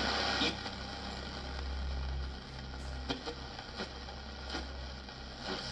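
Philips 684 Major radio tuned between shortwave stations: a broadcast voice fades out about half a second in, leaving steady static hiss over a low hum, with a few faint clicks as the tuning knob is turned.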